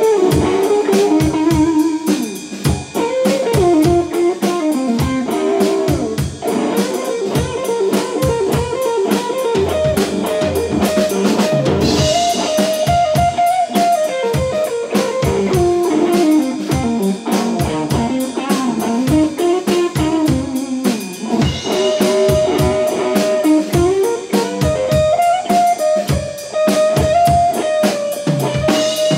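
Instrumental blues played live: an electric guitar plays a lead melody with notes that glide up and down, over a steady drum kit groove.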